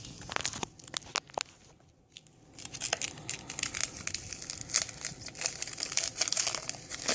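Mr. Noodles instant-noodle packet being crinkled and torn open by hand: a few sharp crackles at first, then a steady run of crinkling and tearing from about three seconds in.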